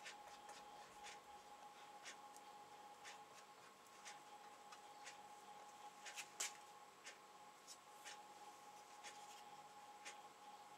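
Faint scratching of a small stick mixing Araldite two-part epoxy on a sheet of paper, with a few louder clicks about six seconds in. A steady tick about once a second and a low electrical hum run underneath.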